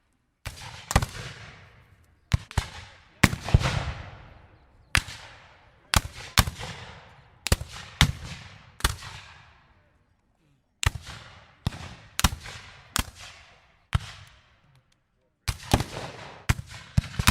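Gunshots fired one at a time or in quick pairs with irregular pauses, about two dozen in all. Each shot is a sharp crack followed by a trailing echo, with dead silence between some groups.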